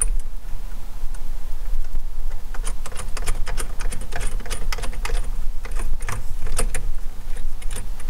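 Irregular small clicks and taps of metal nuts being threaded by hand onto the bolts of a plastic RO drain saddle clamp on a sink drain pipe, over a steady low rumble. The clicks come thicker in the second half.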